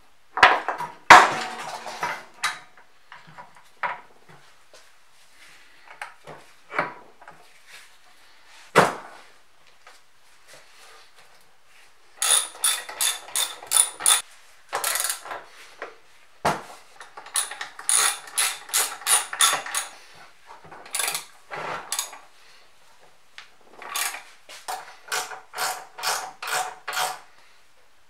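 Metal parts knocking as a mortiser's cast sliding table is set onto its frame, then several runs of rapid metallic clicking, about five a second, from a ratcheting wrench tightening the nuts on the table's guide rods.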